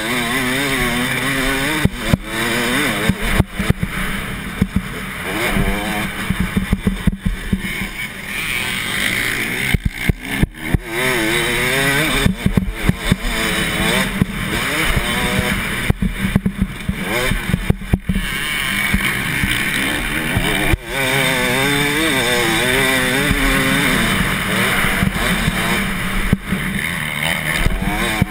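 Motocross bike engine ridden hard, its note rising and falling again and again as the rider revs out, shifts and rolls off, with many short knocks and dropouts from the rough track and wind on the onboard microphone.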